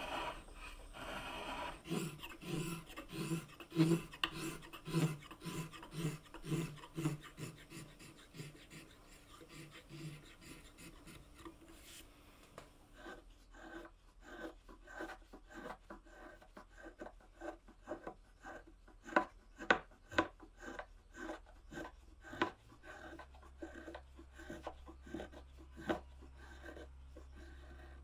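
Small brass spokeshave shaving wood in repeated hand strokes, about one to two a second, each a short scrape of the blade taking off a shaving. About halfway through, the strokes turn lighter and sharper.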